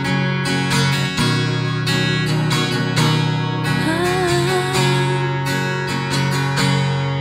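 Acoustic guitar strummed steadily in a song's instrumental break, with a short wordless sung note about four seconds in.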